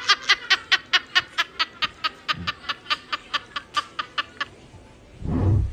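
A rapid string of short high-pitched laugh-like bursts, about five a second, fading out after about four and a half seconds, then one loud low rumble near the end.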